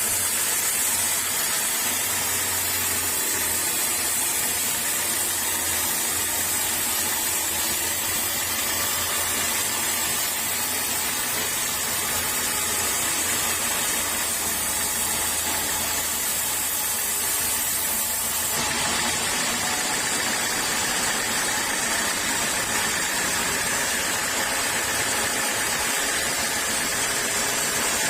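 Sawmill saw running steadily through teak wood, a continuous hissing machine noise; about two-thirds of the way through, a low hum drops out and the high hiss changes.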